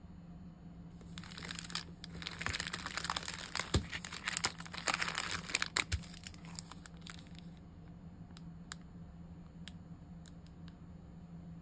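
Plastic packets of craft supplies crinkling and rustling as they are handled, a dense crackle for about six seconds, then a few light clicks.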